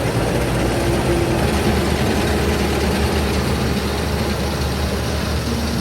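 Farm tractor engine running steadily with the round baler working behind it, a constant low hum under broad mechanical noise.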